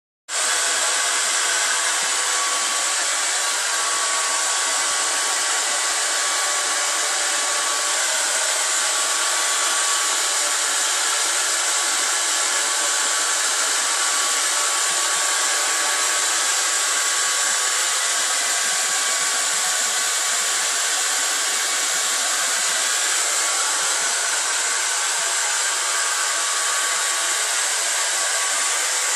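Handheld hair dryer running steadily, blowing on a wet dog's coat: an even hiss with a faint steady whine under it.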